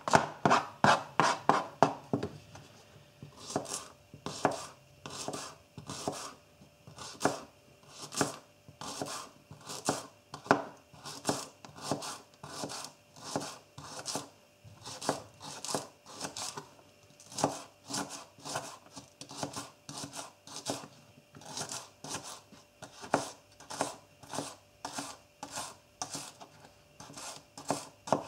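Spyderco Native 5 folding knife slicing spring onions on a cutting board: a steady run of crisp chopping strokes, each cut ending in a tap on the board. The strokes come quickly for the first couple of seconds, then settle to about two a second.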